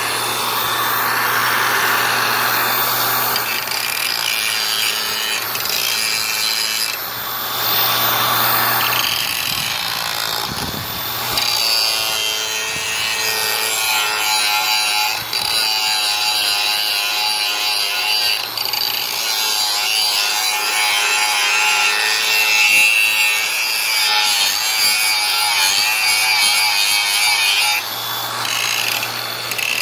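Makita XAG03 cordless brushless 4-1/2 inch angle grinder grinding a surface clean: a steady motor whine over a continuous rasping grind that wavers as the pressure on the wheel changes.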